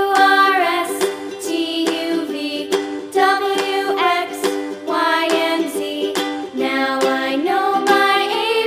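Cheerful background music: plucked strings strummed on a steady beat under a high, gliding melody line.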